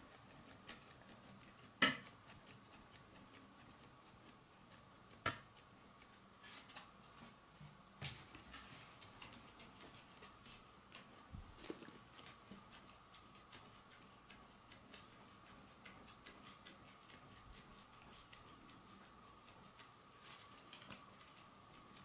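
Quiet room tone with a faint steady high hum and scattered small clicks. There are three sharper clicks, about two, five and eight seconds in.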